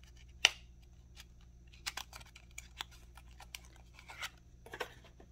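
Hands opening a small cardboard lipstick box: a sharp click about half a second in, then scattered light clicks and short rustles of the packaging.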